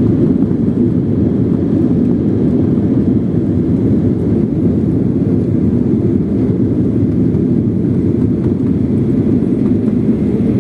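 Steady low rumble of a Boeing 737-800 heard from inside the cabin while it is on the ground after landing: engine and airframe noise, even throughout with no sudden changes.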